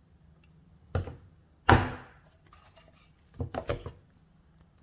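A few knocks and clunks of kitchen things being handled and set down on a countertop. A sharp knock about a second and a half in is the loudest and rings briefly, and a short run of clicks follows past three seconds.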